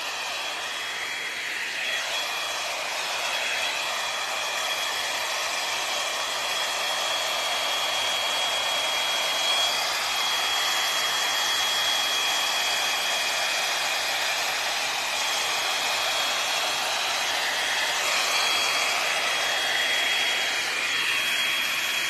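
L'ange Max Volume hot-air brush running, a steady rush of blown air with a thin, constant high motor whine.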